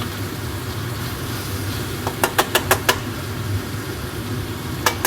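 A cooking utensil clicking against a pan in two quick runs of about five knocks each, over a steady low hum.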